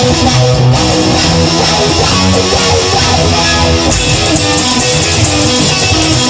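Instrumental stretch of a rock song, with guitar playing over bass and drums.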